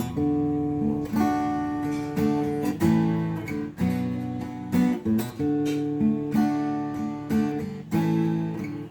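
Acoustic guitar strummed in a steady rhythm of chords, unprocessed, before any singing comes in: a Tribo TR-00 Bagito beginner's acoustic guitar.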